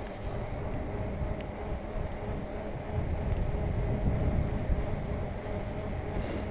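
Wind noise on a helmet-mounted camera's microphone while riding a mountain bike, with a steady hum from the tyres rolling on asphalt.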